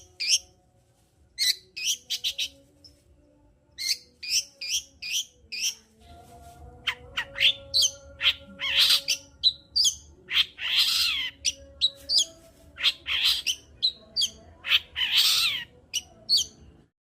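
Long-tailed shrike (cendet) singing in a rapid, varied stream: quick groups of sharp, high chirps, with harsh rasping calls mixed in from about eight seconds in.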